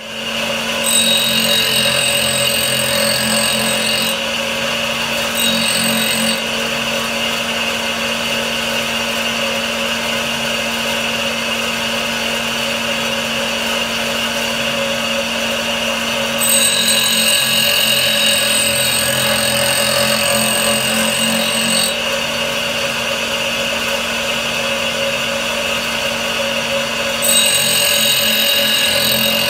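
Home-built tool grinder with a 100 mm, 180-grit diamond cup wheel, its motor coming up to speed about a second in and then running steadily. Several stretches of higher hiss come and go as the wheel grinds the clearance angle on the cutting edges of a collet-held cutter.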